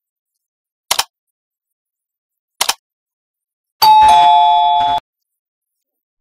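Subscribe-button animation sound effects: two short mouse clicks a little under two seconds apart, then a notification bell chime of two tones about four seconds in, lasting about a second.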